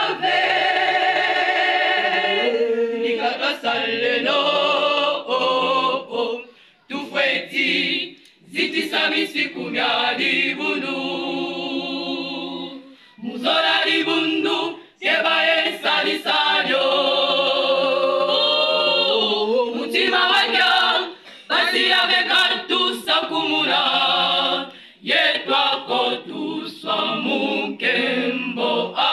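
Women's choir singing a church hymn a cappella, in phrases broken by brief breaks for breath.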